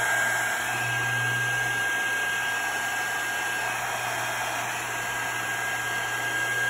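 Handheld heat gun running steadily on high: a continuous rush of blown air with a thin, constant high-pitched whine and a low hum underneath. It is blowing across wet epoxy to push white alcohol ink around.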